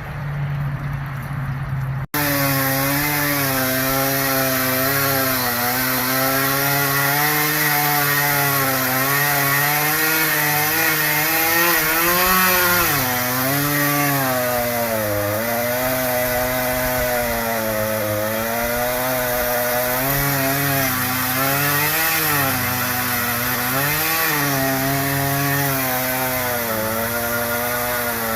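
Chainsaw running at high revs while cutting wood, its engine pitch repeatedly dipping and recovering as the chain bites. The sound cuts in abruptly about two seconds in, replacing a steadier, lower hum.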